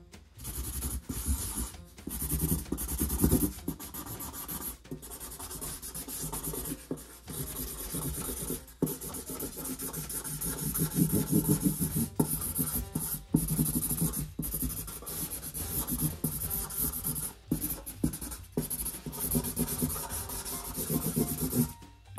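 Felt-tip marker scribbling on a cardboard comic box: a scratchy rubbing of quick back-and-forth colouring strokes, broken by many short pauses.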